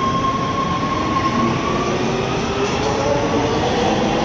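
Los Angeles Metro Red/Purple Line subway train (stainless-steel Breda A650 cars) pulling out of an underground station, its rumble filling the platform. A steady high tone fades out about halfway through, then the traction motors' whine rises in pitch as the train accelerates away.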